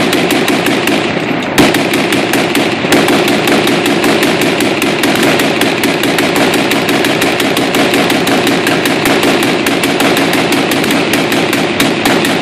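Gatling gun firing blanks in a long, continuous burst of rapid shots while its crank is turned, with a couple of louder reports near the start.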